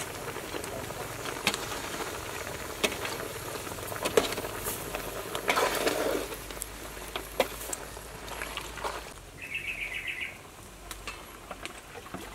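Metal ladle stirring bamboo shoots and pork in a large metal cooking pot: scattered clinks and scrapes, with a louder clatter a little before halfway. Later comes a short burst of rapid bird chirping.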